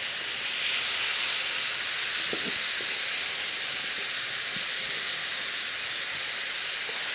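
Pork fillets, celery and kumquats sizzling in sunflower oil in a stainless steel frying pan over high heat: a steady frying hiss, a little louder about a second in.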